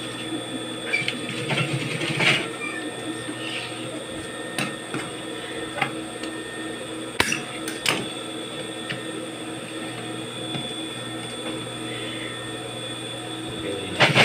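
Juki industrial sewing machine with its motor humming steadily, running a short stitch burst about two seconds in and starting to sew again right at the end. A few sharp clicks in between as the fabric is handled.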